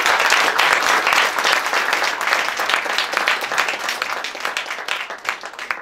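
Audience applauding, many hands clapping, loud at first and gradually dying away.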